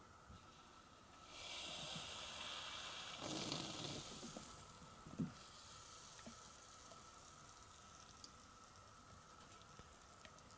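AeroPress plunger pressed to the bottom: a hiss of air forced through the coffee grounds for about three seconds, growing fuller near its end, marking the end of the press. A single knock follows about five seconds in.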